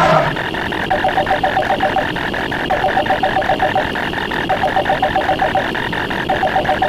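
Layered stock sound effects: a rapid stream of ticks, about eight a second, runs throughout, overlaid by repeating trilling rings about a second long with short gaps, like a telephone ring effect.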